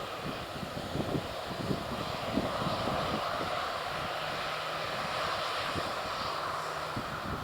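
Jet airliner engines running, growing louder about two and a half seconds in, with gusty wind buffeting the microphone in low thumps.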